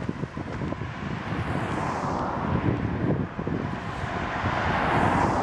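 Car driving past on the road: its tyre and engine noise swells as it approaches, loudest near the end and falling away just after. Wind rumbles on the microphone underneath.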